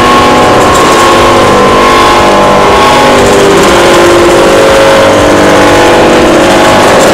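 Static stainless-steel rotary dryer running, a loud steady machine hum whose pitch drifts slightly up and down.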